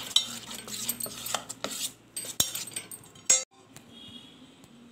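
Metal spoon stirring thick gram-flour batter in a steel bowl, with quick irregular clinks and scrapes against the bowl; it goes quiet after about three and a half seconds.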